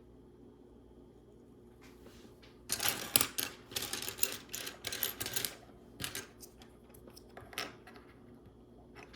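Loose plastic Lego Technic pieces clattering and clicking as hands rummage through them: a few seconds of quick rattling, then several single clicks.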